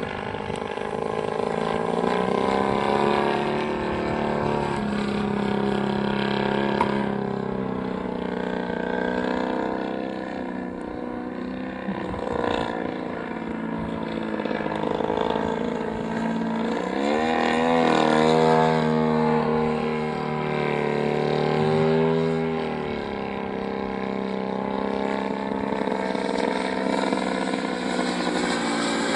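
Engine and propeller of a radio-controlled Yak aerobatic model plane running in flight, its pitch rising and falling as the throttle changes and the plane passes, with two sweeping swoops in pitch in the second half.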